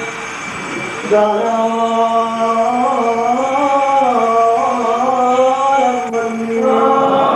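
Sung liturgical chant of the Holy Qurbana: a slow melody of long, held notes. It pauses briefly at the start and picks up again about a second in.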